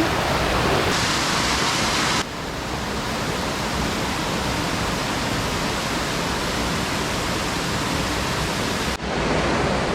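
High Shoals Falls, water rushing steadily over the rocks. The noise drops abruptly in level a couple of seconds in and shifts again near the end.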